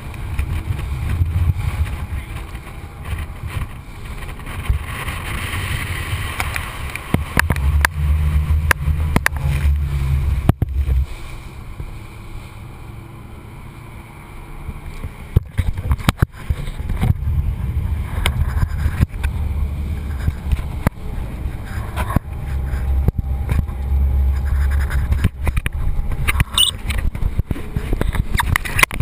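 Rushing wind, engine and spray on a speeding RIB, heard as a heavy, buffeting low rumble muffled by a GoPro's waterproof housing. Water slaps and knocks against the hull and camera throughout. It eases off for a few seconds about halfway through, then builds again.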